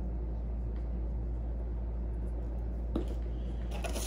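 Steady low hum, with a light knock about three seconds in and rustling near the end as a seasoning box is picked up from the counter.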